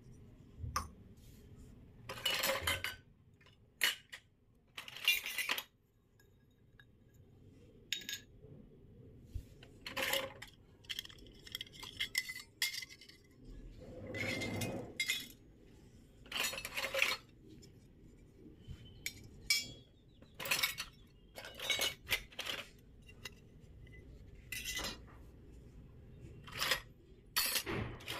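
Miniature stainless-steel toy plates and dishes clinking and scraping against each other and the floor as they are set down one after another, with irregular clinks every second or so, some ringing briefly.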